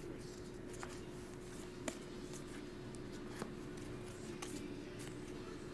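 Topps Chrome trading cards being handled and flipped through by hand: soft sliding of card against card with a few faint clicks, the clearest about two seconds in, over a faint steady hum.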